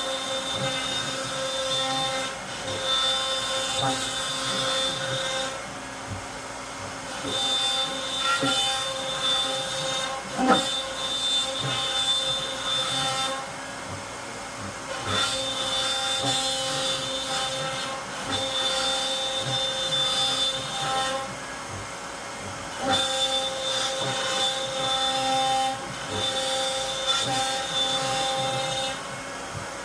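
CNC router's motors whining at a fixed pitch in runs of a few seconds, stopping briefly between runs, with one sharp knock about ten seconds in.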